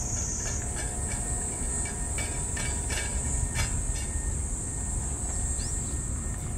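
Cats eating wet food from metal dishes, with irregular small clicks of chewing and dish contact, over a steady high-pitched drone of cicadas and a low rumble.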